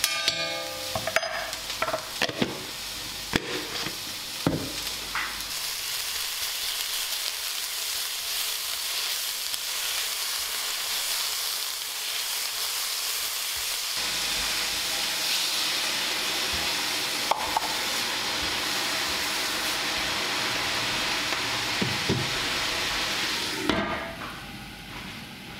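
Food frying in a pan, a steady sizzle, with a few sharp knocks of a cooking utensil against the pan in the first few seconds. The sizzle drops off sharply near the end.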